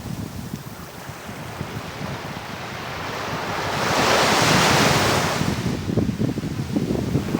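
A sea wave breaking and washing up the shore, building for a couple of seconds to a loud wash near the middle and then fading away, with wind buffeting the microphone throughout.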